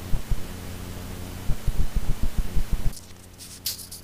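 Irregular low thumps and rumble of wind and handling on a phone microphone while walking, over a steady low hum. About three seconds in it cuts to a quieter steady hum with a few light crackling rustles.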